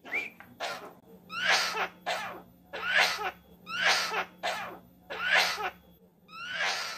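Javan myna (jalak kebo) mimicking a person's coughing: a string of short, harsh cough-like bursts, roughly one every half second to a second.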